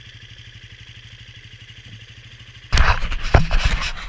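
Dirt bike engine idling with a steady low beat; about two and a half seconds in, a sudden loud burst of clattering and rushing noise takes over.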